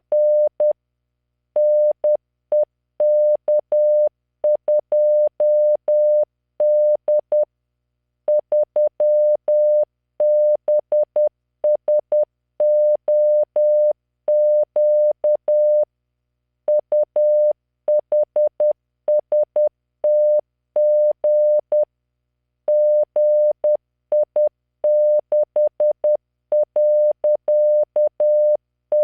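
Morse code practice tone: a single 600 Hz computer-generated beep keyed into dots and dashes at 10 words per minute, sending random five-character groups of letters, figures and punctuation with short pauses between groups. Each tone starts and stops with a faint click.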